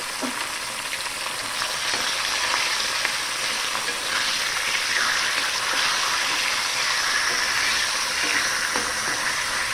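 Food sizzling steadily as it fries in a hot pan, with a few light clicks from the pan.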